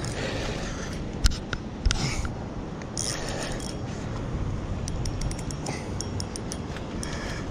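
Spinning reel being handled right at the microphone: two sharp knocks between one and two seconds in, then a quick run of light clicks about five seconds in, over a steady low rumble.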